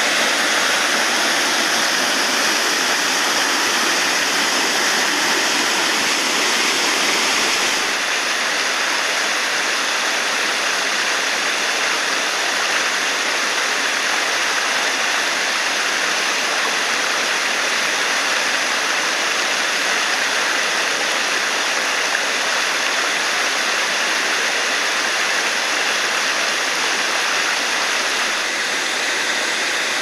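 Steady rush of water from a waterfall and its stream. The sound shifts slightly, losing some of its lowest rumble, about eight seconds in.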